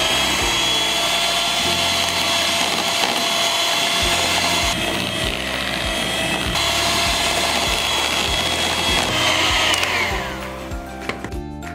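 Electric hand mixer running steadily with a high whine, its beaters mixing flour into whipped egg-and-sugar cake batter; the motor slows and stops about ten seconds in.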